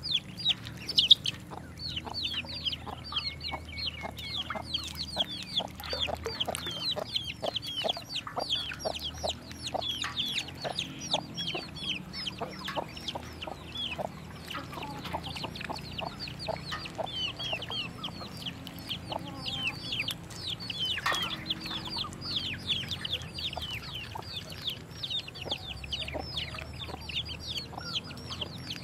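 A group of ducklings peeping constantly, a dense stream of short, high, downward-slurred peeps overlapping several times a second.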